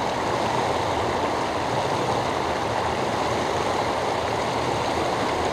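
Steady rush of turbulent white water churning at the foot of the riverbank.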